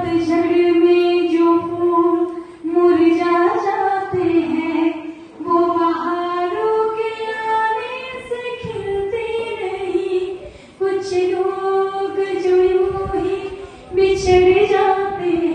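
A woman singing a slow Hindi film song solo, in long held notes, with short pauses between phrases.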